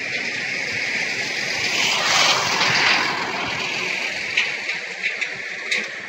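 Road traffic running steadily, one vehicle swelling past about two seconds in.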